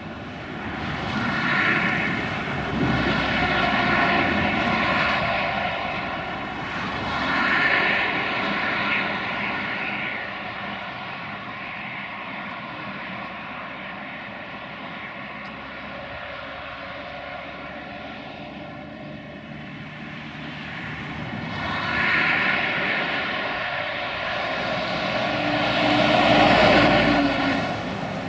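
Heavy diesel lorries and cars passing on a road one after another, their engines and tyres swelling and fading. The loudest pass comes near the end, as a truck comes close. A steady engine drone runs underneath throughout.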